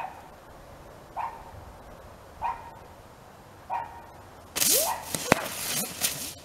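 A dog barks four times, about a second and a quarter apart. About four and a half seconds in, a ground bloom spinner firework ignites and spins, hissing loudly, with a sharp pop near the end.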